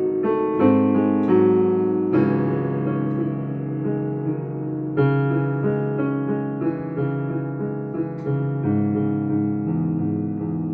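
Piano being played: sustained chords under a melody, with new notes and chords struck every second or so.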